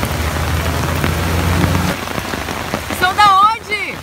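Heavy rain pouring onto a flooded street, with a low steady vehicle engine hum for the first couple of seconds. A brief high-pitched voice cries out near the end.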